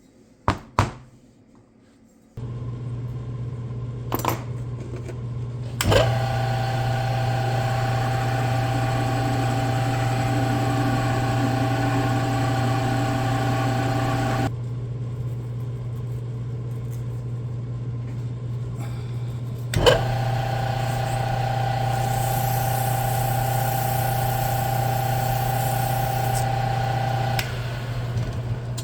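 Honda blower motor, a small electric fan motor, running on test over a steady low electrical hum. It starts with a click about six seconds in, runs steadily for about eight seconds and stops, then is switched on again with a click and runs for about seven more seconds.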